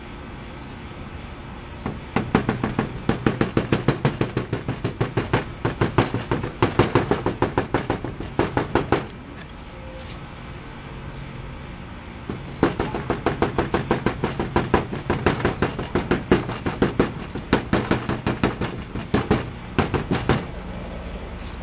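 Aerosol spray-paint can being shaken hard, its mixing ball rattling about five times a second, in two bouts of several seconds each with a pause between.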